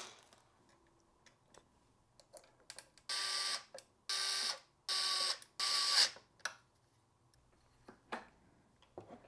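Four short bursts, about half a second each, of a small electric motor running at a steady pitch, with light clicks and knocks around them.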